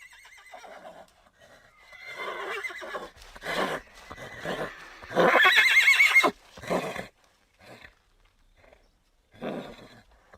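Horse whinnying: shorter calls build up, then one loud, long whinny with a quavering pitch about five seconds in, followed by a few brief calls near the end.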